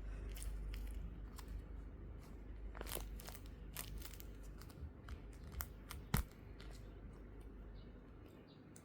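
Crinkling and rustling as a homemade squishy is squeezed and handled, with scattered sharp crackles, the loudest a little after six seconds in.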